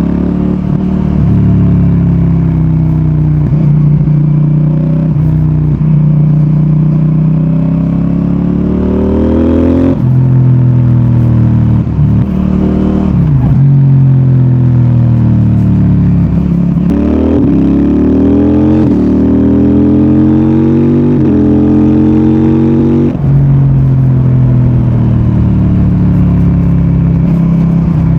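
CFMOTO 800NK Advanced parallel-twin motorcycle engine and exhaust under way. The pitch climbs under throttle, drops abruptly at gear changes, and falls away as the bike slows, several times over.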